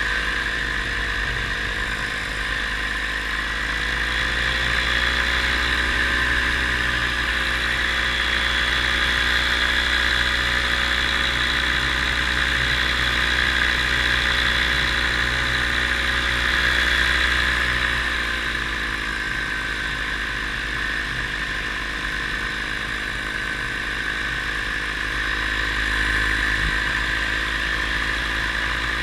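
Paramotor engine and propeller running steadily in flight. The engine speed rises about four seconds in, holds, and drops back a little past halfway.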